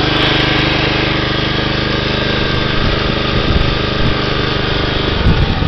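John Deere 14SE mower's small engine running steadily, then stalling about five seconds in as its hum breaks up and dies away.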